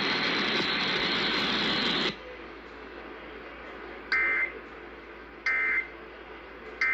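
Three short, harsh two-tone data bursts about 1.4 s apart: the Emergency Alert System end-of-message code, sent three times to close the national test broadcast. Before them, a loud hiss that cuts off suddenly about two seconds in.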